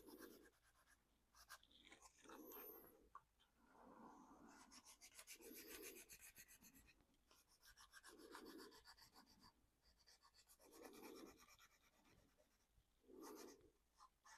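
Faint scratchy rubbing on a painted plastic RC body, a short spell every two to three seconds, as the paint is worn back toward the primer.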